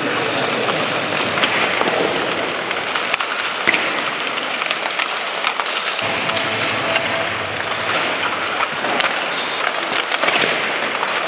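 Ice hockey rink ambience: skate blades scraping the ice and scattered sharp cracks and knocks of pucks off sticks and boards, over a steady arena hiss.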